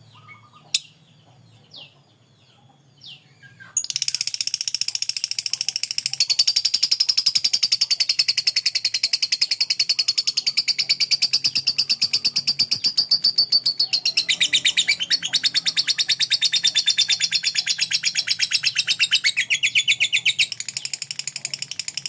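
Lovebird singing a long ngekek: a rapid, unbroken chattering trill that starts about four seconds in after a few short chirps and runs on without a pause, dipping lower twice near the end.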